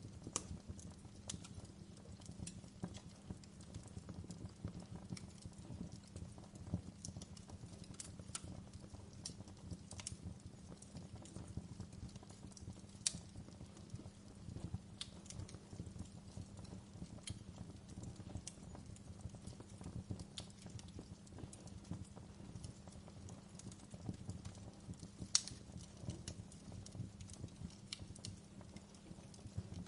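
Wood fire crackling in a fireplace: a steady low rumble of the flames under irregular sharp snaps and pops, with two louder pops, one about halfway and one near the end.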